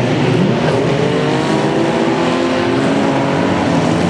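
Several small speedway race cars' engines revving together, their engine notes rising and falling and overlapping.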